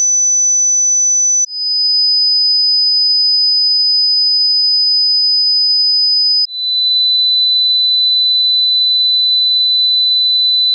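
High-pitched pure sine-wave test tones from a hearing test, each held steady and stepping down in pitch twice, about one and a half seconds in and again about six and a half seconds in.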